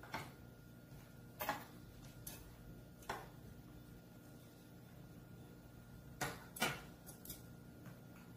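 Metal chopsticks clicking against ceramic side dishes and bowls while food is picked up: about seven short, sharp clicks spread unevenly, over a steady low room hum.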